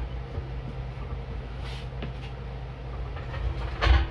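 Heavy two-stage air compressor pump being lifted and set down onto the compressor's mounting plate, landing with a loud clunk near the end, over a steady low hum.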